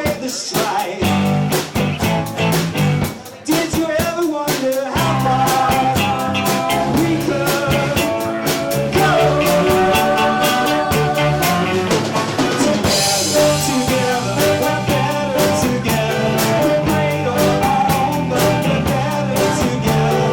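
Live rock band playing, with a steady drum-kit beat under the band. The arrangement starts sparse and fills out about five seconds in, with a cymbal crash a little past the middle.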